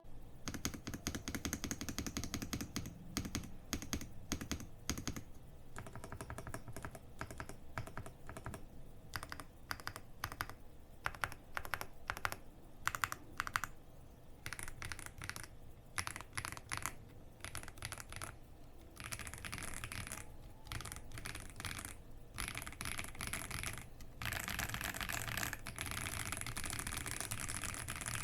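Typing on a Xinmeng X98 Pro mechanical keyboard with linear White Jade switches and Cherry-profile PBT doubleshot keycaps: a continuous run of key presses, soft with a slightly clacky edge, packed closer together for the last few seconds.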